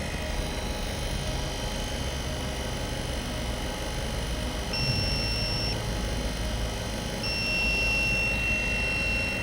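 Refrigeration vacuum pump running with a steady low hum while it evacuates a cold room's refrigerant lines after a nitrogen leak test. A steady high electronic tone comes in for about a second around five seconds in, then again from about seven seconds on.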